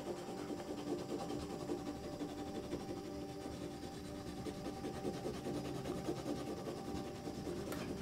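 Wax crayon rubbing back and forth across drawing paper on an easel: a quiet, continuous scratchy shading sound.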